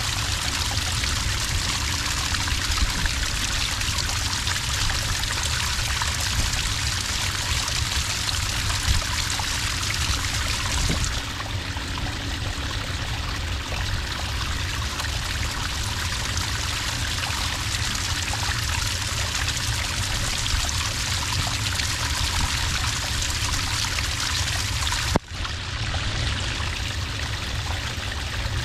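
Small water cascade pouring steadily into sand, a continuous trickling flow. There is a brief dropout in the sound near the end.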